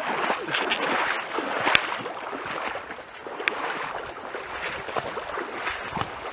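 Legs wading through shin-deep muddy water: continuous sloshing and splashing with each stride, with a sharp click about two seconds in.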